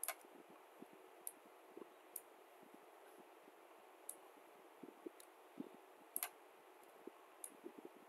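Faint computer mouse clicks, single sharp clicks about every second or so, over a quiet steady hiss.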